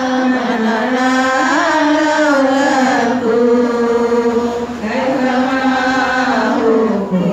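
Voices chanting a devotional sholawat in a long, drawn-out melodic line. The held notes glide up and down, with a brief break about five seconds in.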